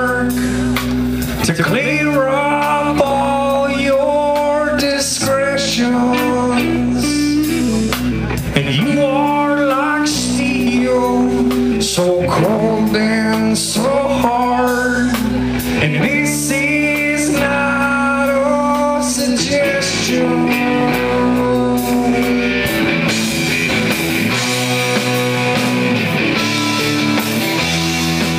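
Live rock band playing electric guitars, bass guitar and drum kit. The cymbals grow brighter in the last few seconds.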